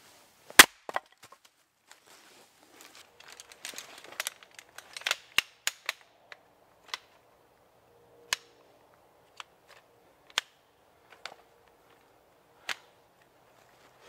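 Firewood being split on a wooden chopping block: a loud sharp crack about half a second in, then a run of wooden cracks and knocks, then single sharp knocks every second or two.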